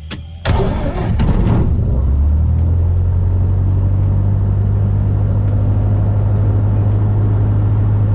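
Cessna 152's Lycoming O-235 four-cylinder aircraft engine being started from inside the cockpit. It catches with a sudden loud burst about half a second in, then settles within a couple of seconds into a steady idle.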